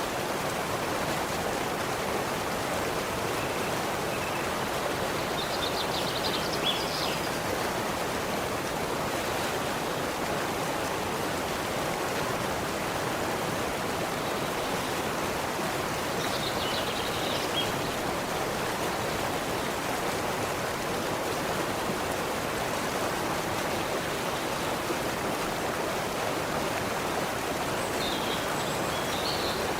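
Steady rushing of a forest stream, with a few faint bird chirps a handful of times.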